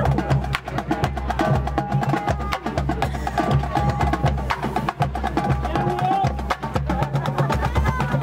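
Marching band playing its field show: sustained pitched notes over busy percussion, with many sharp, rapid clicks.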